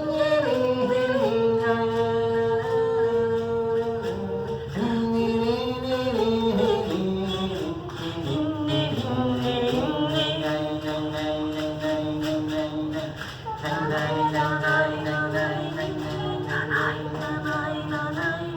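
Unaccompanied singing in long held notes that slide from one pitch to the next.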